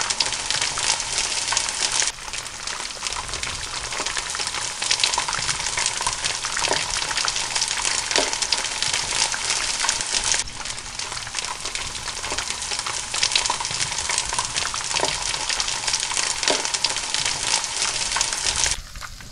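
Flour-and-egg-coated pieces of fresh fish frying in hot oil in a pan: a dense, steady crackle and sizzle.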